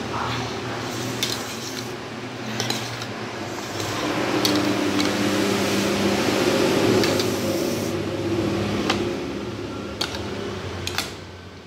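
Metal fork and spoon clinking and scraping against a ceramic bowl as saucy instant noodles are stirred, several sharp clicks over a steady background hum, louder in the middle stretch.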